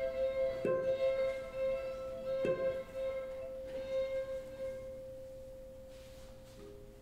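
A violin holding one high note in a contemporary chamber-ensemble piece, re-attacked with sharp accents about a second in and again past two and a half seconds, then slowly fading away.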